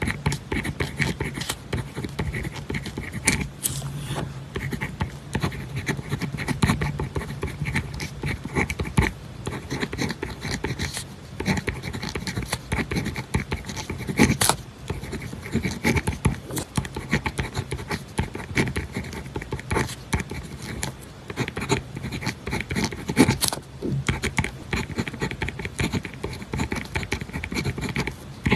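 Pen writing on paper: a steady run of short scratching strokes with small ticks as the pen meets the page.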